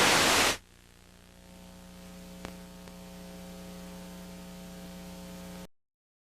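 Television broadcast audio breaking up into a short burst of loud static, then a steady electrical hum with one click about two and a half seconds in, before cutting to dead silence. It is the sound of the broadcast feed dropping out as the earthquake strikes.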